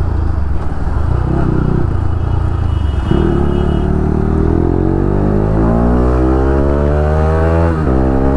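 Bajaj Pulsar RS 200 single-cylinder engine accelerating hard in gear, heard from the rider's seat. Its pitch climbs steadily from about three seconds in, drops at an upshift near the end, then starts climbing again.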